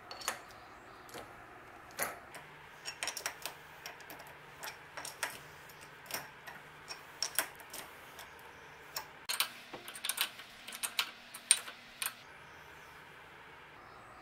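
Steel parts of a lathe's compound slide and tool post being handled: irregular metallic clicks and light knocks in clusters, falling quiet about two seconds before the end.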